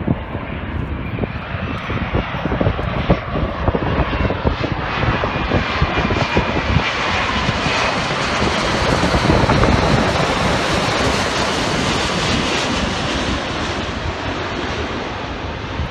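Jet airliner with its landing gear down passing low overhead on landing approach, its engine roar building, loudest about ten seconds in as it goes over, then easing off as it moves away. A faint whine from the engines shows through near the middle.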